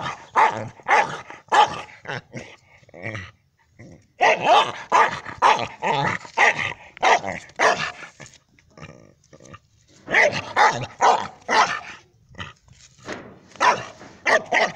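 Dog barking in quick runs of about two barks a second, with brief pauses between the runs, at a hedgehog curled into a ball.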